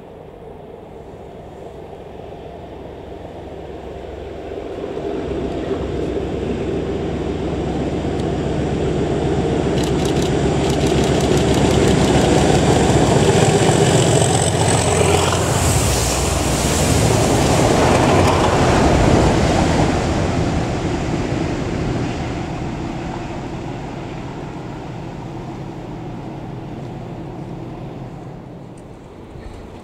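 British Rail Class 37 diesel-electric locomotive's English Electric V12 engine working under power as it approaches, passes close by and draws away with the rail head treatment train. It builds over several seconds to a long peak in the middle, with the hiss of the train's water jets spraying the rails as it goes by, then fades.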